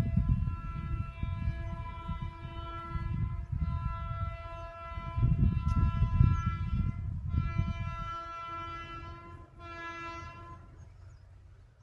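WAP-7 electric locomotive's horn sounding in four blasts, three long and a short one near the end, over the low rumble of the train running on the track.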